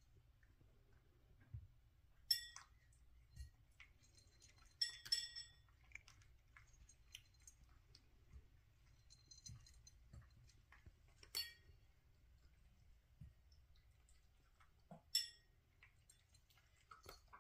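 A cat eating dry kibble from a raised ceramic bowl: a handful of sharp, ringing clinks against the bowl, with quieter small clicks in between.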